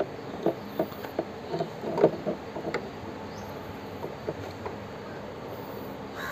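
Light ticks and rustles of stranded copper wire being twisted together by hand, joining an extra length onto a relay's wire, mostly in the first three seconds and then fading to a faint steady background.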